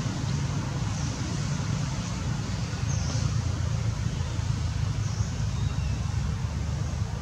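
Steady low rumble of outdoor background noise, with a few faint, brief high chirps about one, three and five seconds in.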